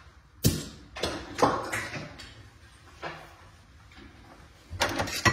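A string of sharp knocks and clunks from handling metal transmission parts and tools at the bench. The loudest comes about half a second in, a few follow over the next second and a half, and a quick cluster sounds near the end.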